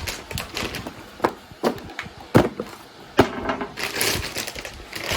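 Plastic wrapping being pulled off a new motherboard: crinkling and rustling plastic with several sharp clicks, the rustling heaviest near the end.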